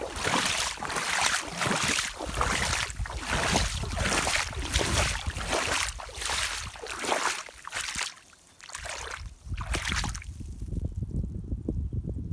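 Rubber rain boots splashing and sloshing through water, about two steps a second, until the splashing stops about ten seconds in and only a low rumble is left.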